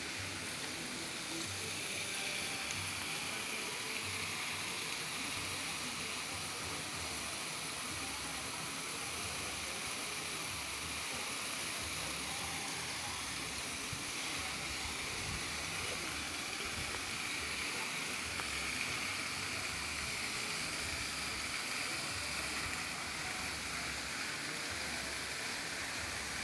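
Steady rush of flowing river water, with an uneven low rumble underneath.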